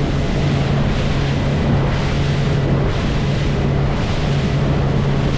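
Boat motor running steadily under way, a constant low hum under a loud rush of wind and water.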